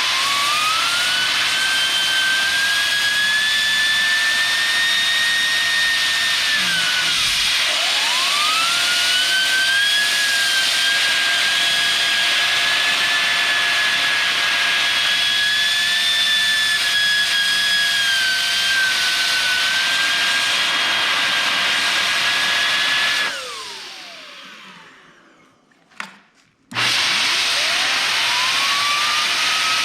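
Strong air blowing over a freshly washed graphics card, with a high whine that climbs quickly, holds steady and glides down when the air stops. It runs twice like this, then dies away almost to silence with one sharp click, and starts up again near the end.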